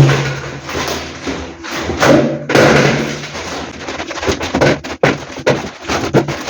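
Groceries being handled and set down: irregular thumps and knocks with rustling.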